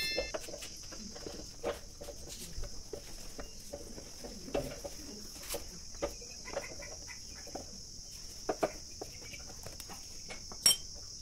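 Steady high-pitched trilling of crickets, with a few light knocks and clicks from the tiller's gearbox parts being handled; the sharpest knock comes near the end.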